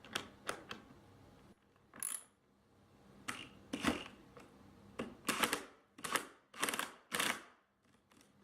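Ratchet wrench clicking as a 7/16 nut is tightened, in a run of short strokes, several close together in the second half.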